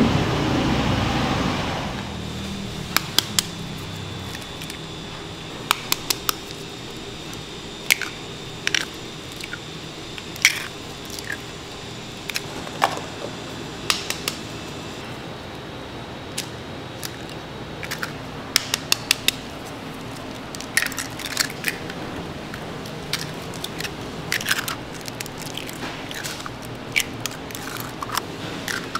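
Raw eggs being cracked by hand one after another into a stainless steel tray: sharp taps and shell crackles at an irregular pace. A louder low rumble at the very start fades out within about two seconds.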